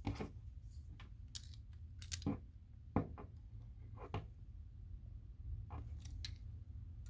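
Scattered small metal clicks and scrapes, some in quick pairs, as another tool pries at a folding multi-tool's jammed liner lock to free a stuck knife blade.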